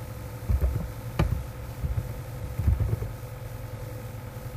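Typing on a computer keyboard: a handful of soft, dull keystroke thumps and one sharper click about a second in, over a steady low hum.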